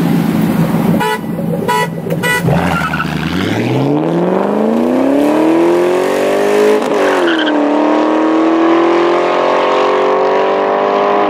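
Three short car-horn toots, then a car engine accelerating hard. Its pitch climbs steadily for several seconds, drops at a gear change and then climbs again more slowly.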